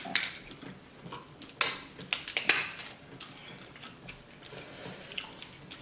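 King crab leg shells cracking and snapping as they are broken apart by hand, a series of sharp, irregular cracks close to the microphone.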